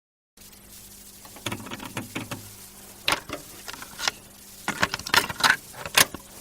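Irregular clicks, taps and rattles, denser in the second half, over a faint steady low hum, with no music or singing.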